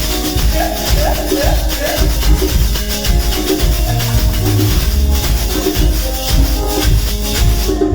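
Live band playing an instrumental passage through the PA: a heavy bass line under a steady, busy beat with shaker and short melodic notes.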